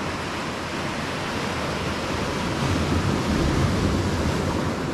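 Sea waves washing on the shore, mixed with wind on the microphone: a steady rushing noise that swells louder for a couple of seconds about three seconds in.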